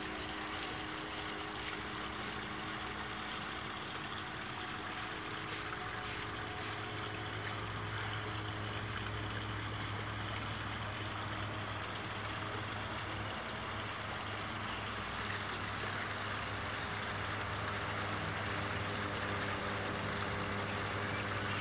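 Steady background noise: an even hiss with a constant low hum underneath, with no distinct calls or knocks standing out.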